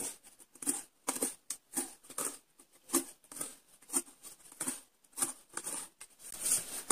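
Strong thread being wrapped around a corrugated cardboard card and drawn through the slots cut in its edges: irregular short scratchy rustles and light taps of thread and cardboard being handled, a few to a second.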